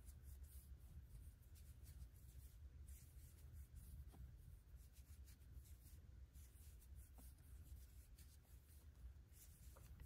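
Near silence with faint, irregular rustling and scratching of double-stranded cotton yarn drawn through stitches by a crochet hook, over a low steady room hum.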